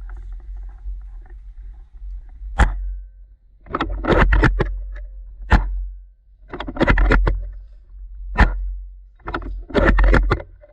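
A bolt-action airsoft sniper rifle fired three times, about three seconds apart, each shot a single sharp snap. Between the shots come bursts of quick mechanical clicks as the bolt is cycled. A low wind rumble on the microphone runs underneath.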